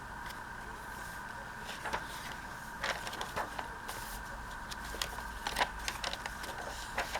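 Paper and card of a handmade journal being handled: scattered light taps, clicks and rustles, more frequent from about two seconds in, over a steady faint two-tone hum.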